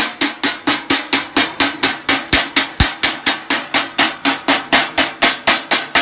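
Chipping hammer striking the steel of a freshly laid root-pass weld, knocking off the slag in a steady run of sharp blows, about four a second.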